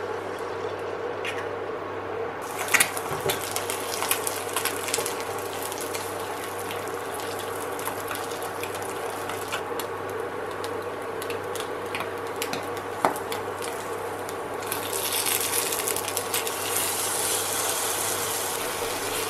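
An egg frying in oil in a nonstick frying pan on an induction cooker: scattered crackles and spits over the cooker's steady hum. The sizzle grows into a louder hiss near the end.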